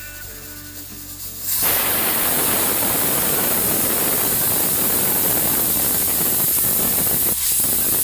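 Pressure cooker whistling: steam jets from the weight valve in a loud, steady hiss that starts about a second and a half in, with a brief dip near the end. The whistle is the sign that the cooker has reached full pressure.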